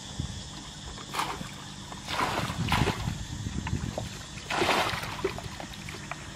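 Muddy water being bailed with plastic buckets: several separate splashes and sloshes as water is scooped and thrown out, one every second or so.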